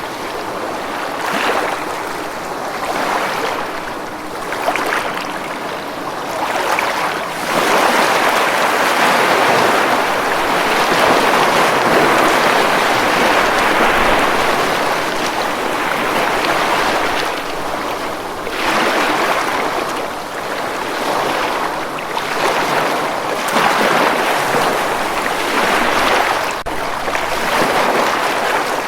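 Ocean waves breaking on a beach in continuous surf, swelling and ebbing, with a long sustained wash through the middle and shorter surges every few seconds near the end.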